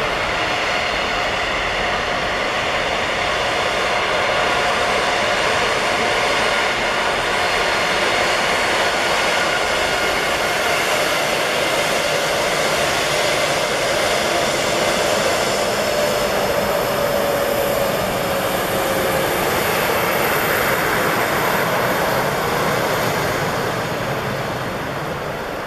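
Twin GE CF34 turbofan engines of an Embraer E190 airliner at taxi power: a steady hissing whine with several high tones over it. About two-thirds through, one tone slides down in pitch, and the sound eases off near the end as the jet turns away.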